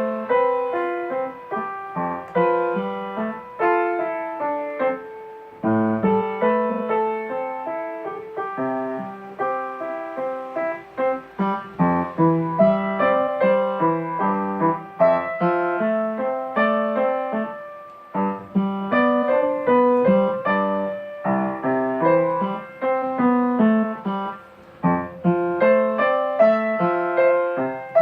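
Solo piano music, a steady run of struck notes and chords.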